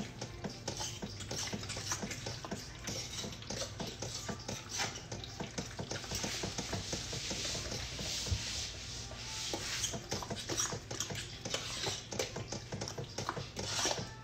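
A spoon stirring and scraping a thick chicken-and-cheese dip in a pot, a continuous run of quick scrapes and clicks.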